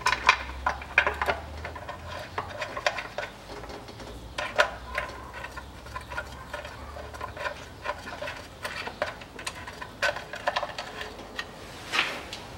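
Irregular small metallic clicks and taps as a new automatic-transmission filter is fitted against the valve body and its bolts are threaded in by hand. A faint low hum runs under the first half.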